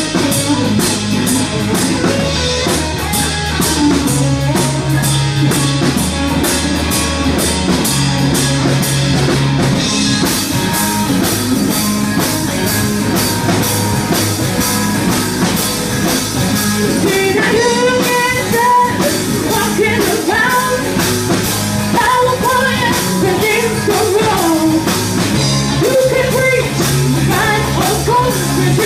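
Live rock band playing: drum kit keeping a steady beat under electric bass and guitar, with a woman singing over the second half.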